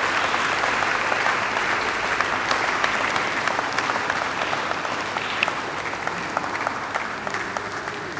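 Audience applauding: a steady clatter of many hands clapping that slowly dies down.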